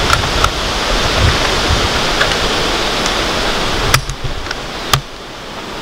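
Wind buffeting the microphone: a steady rush with low rumbling gusts that eases about four seconds in. A few sharp clicks cut through it, the loudest two about four and five seconds in.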